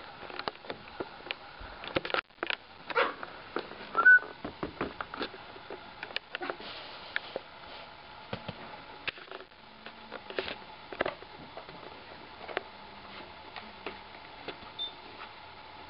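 Cardboard shoebox being handled and shuffled about on carpet, with scattered clicks, knocks and rustles as a Pomeranian gets into it. A brief high squeak sounds about four seconds in.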